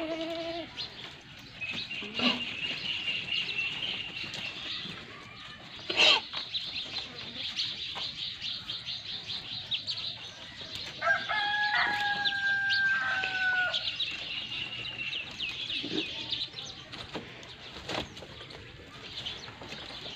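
Farmyard sounds: a rooster crows once, a long held call about eleven seconds in, over steady chirping of small birds. A goat gives a short bleat at the very start, and there is a sharp knock about six seconds in.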